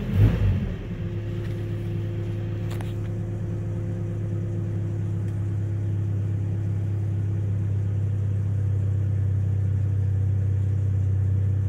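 Car engine idling while it warms up after a cold start. There is a short rev just after the start, then it settles into a steady idle, with a faint click about three seconds in.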